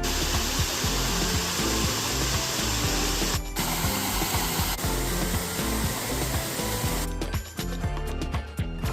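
Background music under a steady, loud rushing hiss that breaks off for a moment about three and a half seconds in and stops abruptly about seven seconds in, leaving the music alone.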